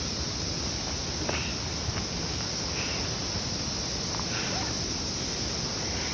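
Cicadas droning in a steady high-pitched chorus, over a low rushing noise, with a few light clicks.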